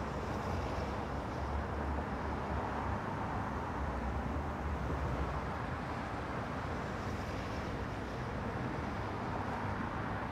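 Steady low rumble and hiss of road vehicles, with no distinct events.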